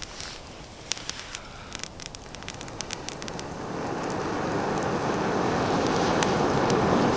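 Campfire crackling with scattered sharp snaps, then from about three and a half seconds in a long, steady rush of air as the embers are blown on through a long blowpipe, growing louder and fanning the fire.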